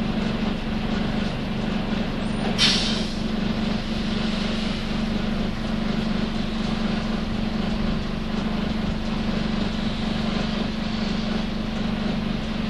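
Nissan Diesel UA city bus running, heard from inside, with a steady droning hum: the abnormal noise this bus made as its inspection came due. About two and a half seconds in there is one short, sharp hiss of released air.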